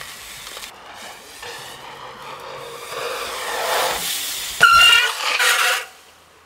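BMX bike riding past: a rush of tyre and wind noise swells over several seconds. About four and a half seconds in comes a sharp knock with a brief squeal, and the noise cuts off shortly before the end.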